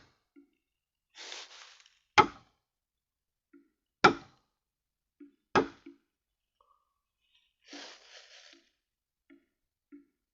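A blade chopping into a bamboo stalk: three sharp strikes about two seconds apart, with softer rustling between them.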